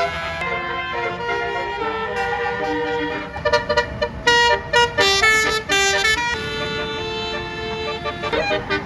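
A bus's Basuri telolet air horn playing a melody: held notes stepping from pitch to pitch for the first few seconds, then a run of short, quick notes from about three and a half seconds in.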